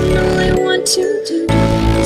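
Background music with held notes and a cymbal-like hit; the bass drops out for about a second and comes back in near the end.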